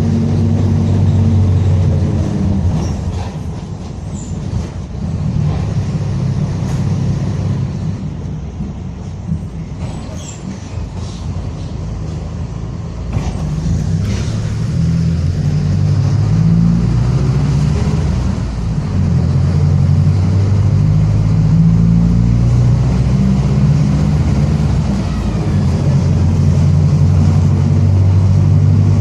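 Mercedes-Benz OF-1722M city bus under way, its drivetrain running with a growling differential. The low drone rises and falls with the driving: it eases off for several seconds, then builds again about halfway through, with a few light knocks along the way.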